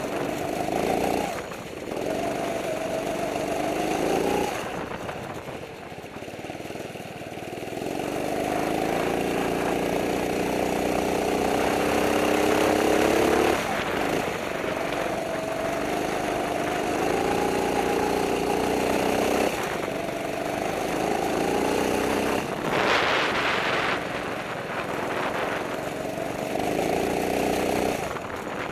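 Kart engine heard onboard, revving up in long climbs and dropping off sharply about six times as the kart accelerates along straights and lifts for corners. A few short rushes of hiss come in over it.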